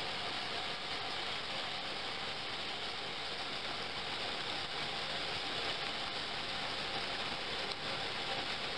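Water running steadily from an inverted glass flask into a hanging glass dish and swirling in it: an even hiss with a faint steady hum underneath.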